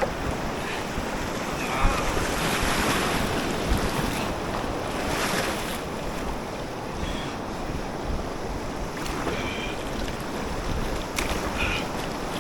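River water rushing and churning around a kayak in moving current, surging louder a couple of times, with wind buffeting the microphone.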